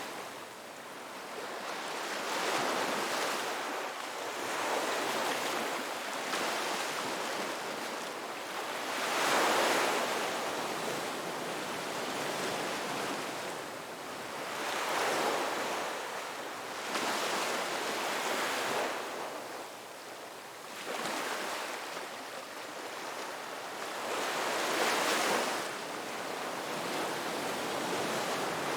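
Ocean waves breaking on a beach: a steady wash of surf that swells and fades as each wave comes in, every few seconds, with the largest surges about nine, fifteen and twenty-five seconds in.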